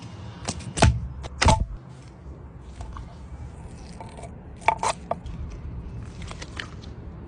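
Scissors snipping through a giant gummy fish against a wooden cutting board: a few sharp clicks, about four within the first second and a half and two more near five seconds in, over a low steady rumble.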